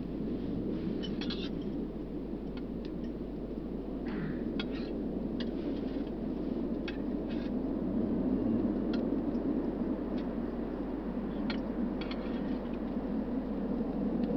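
A steady low rushing rumble that swells louder toward the end, with scattered light clicks of metal cooking tongs against the grill and cookware.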